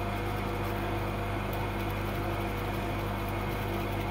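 A steady low hum with overtones, holding even throughout.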